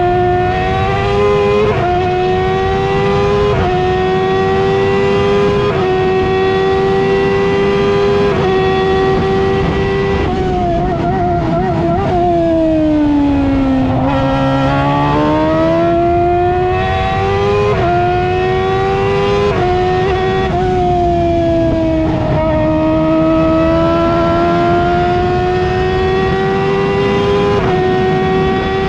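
Onboard sound of an F1000 formula car's 1000cc motorcycle-derived engine at racing speed. The engine note climbs and steps through gear changes, falls around the middle as the car slows for a corner, then climbs again under acceleration.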